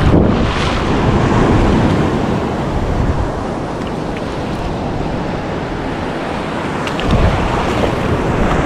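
Surf washing and sloshing around a wader standing in knee-deep water, with wind on the microphone. The rushing water swells loudest in the first couple of seconds and again about seven seconds in.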